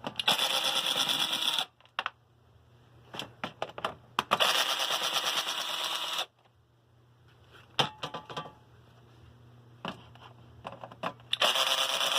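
A cordless drill driver running in three short bursts as it backs screws out of a box fan's grille. Small clicks and knocks of handling come between the bursts.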